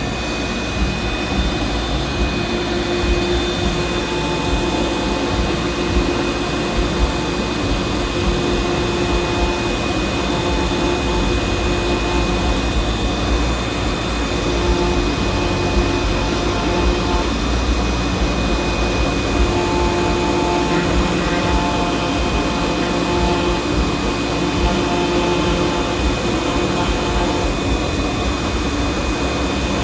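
Desktop CNC router with a 300 W spindle running a job: a steady high spindle whine over a constant machine noise, with lower motor tones that come and go as the axes move.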